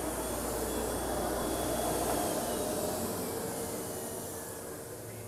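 Steady whooshing machinery noise in a workshop, with a low hum underneath that drops out about two seconds in.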